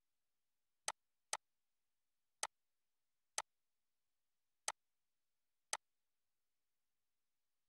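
Computer mouse clicks: six short, sharp clicks at uneven intervals, two of them close together about a second in.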